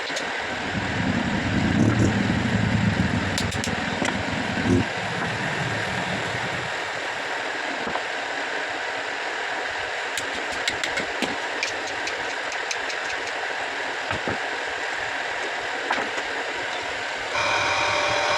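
Repaired electric water pump motor running steadily, with a rushing noise; a louder low rumble comes in over the first few seconds and a few light clicks sound over it. Near the end it changes to a steadier hum with several clear tones.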